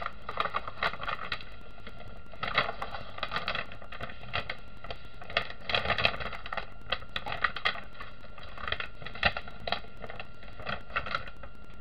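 Crackling and ticking of the plastic release film on a sticky diamond painting canvas as it is peeled and the canvas is pressed flat by hand, coming in irregular clusters of short crackles.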